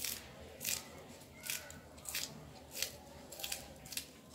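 Crisp cuts of a small knife slicing through green onion stalks held in the hand, with no cutting board, about seven cuts at an even pace of roughly one and a half a second.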